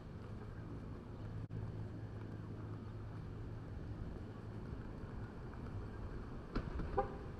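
Street ambience: a steady low hum, like a vehicle engine running nearby, with a couple of short, sharp sounds near the end.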